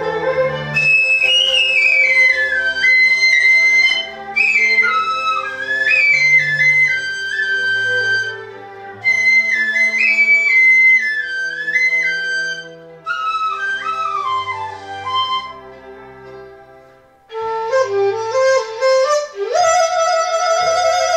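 Chinese bamboo flute (dizi) playing a melody in phrases that mostly step downward, with short breaks between them. Near the end it drops to a lower register and plays a fast trill.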